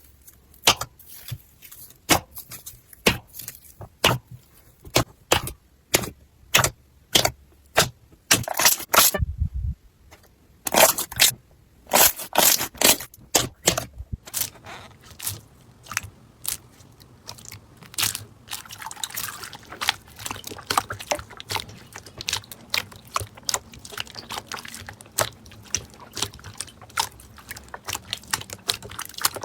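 Crunchy slime being squeezed and pressed: crisp crackling and popping clicks in quick runs. About halfway through it turns to softer, wetter crackly squishing.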